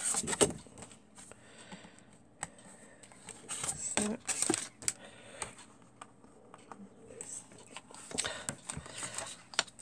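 Sheets of craft card and paper being handled and turned over by hand: short rustles and sliding sweeps of card, the loudest at the start and about four seconds in.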